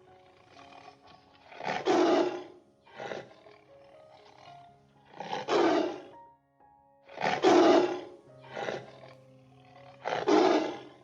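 Tiger roaring repeatedly: four loud roars, each under a second long, with softer, shorter ones between them, over background music with sustained tones.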